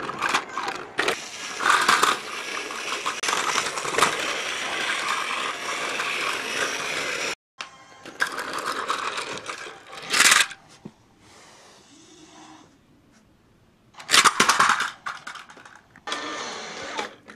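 Battery-powered Plarail toy trains running on plastic track: small motors whirring and wheels and couplings rattling, in several short takes, the first long one cutting off abruptly about seven seconds in.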